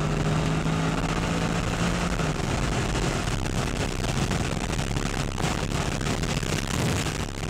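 Engine and road noise inside the cabin of a Renntech-tuned Mercedes SLR McLaren with its supercharged V8, cruising at highway speed. A steady engine tone fades about two seconds in, leaving the road and wind noise.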